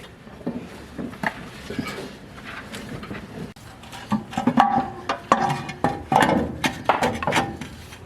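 Hand tools and metal parts clanking and knocking against one another while the engine's sump is being worked loose, a string of irregular sharp knocks, some of them ringing briefly, busiest in the second half.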